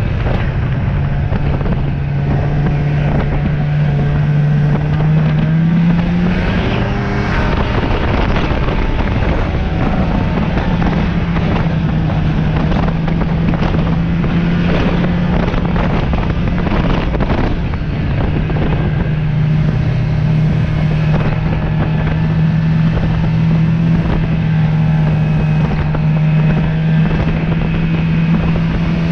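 Snowmobile engine running steadily under way, with wind rushing over the microphone. The engine note rises about six seconds in and then holds steady.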